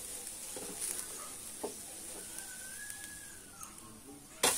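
Faint sizzling of a sweet dosa cooking on a nonstick pan, with a few light clicks and one short high whistle that rises and falls about two seconds in. Near the end a sharp knock, and the sizzling turns loud.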